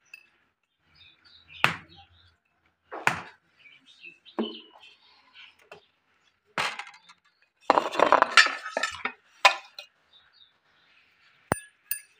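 Kitchenware being handled: a series of sharp clinks and knocks, spaced a second or so apart, with a busier rattling cluster about two-thirds of the way through and a crisp click near the end.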